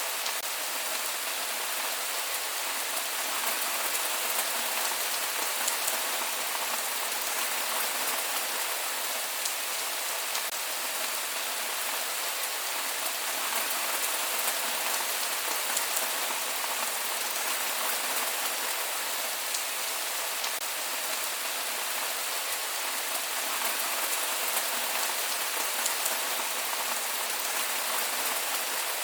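Steady rain falling, with no thunder: an even hiss of rainfall with scattered individual drops ticking on a surface.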